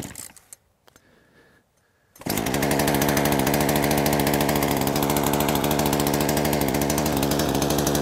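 Poulan Woodshark two-stroke chainsaw engine pull-started on half choke: it catches about two seconds in and then runs steadily at a fast idle, still choked.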